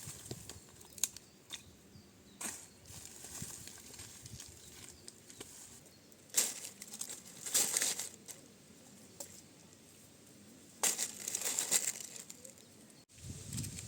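Handling noises: several short bursts of rustling and crinkling with quieter gaps between.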